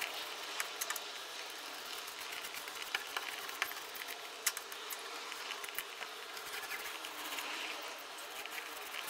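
A small roller working wet epoxy into fiberglass tape in a plywood hull corner, with scattered light clicks and taps over a steady faint hiss.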